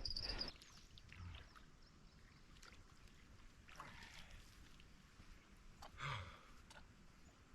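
Near silence by a creek: crickets chirping stop about half a second in, leaving faint scattered ticks and rustles, with a short low sound about six seconds in.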